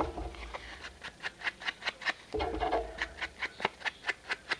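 Foam ink applicator dabbed rapidly against the edges of a paper journal card: a quick run of soft taps, several a second.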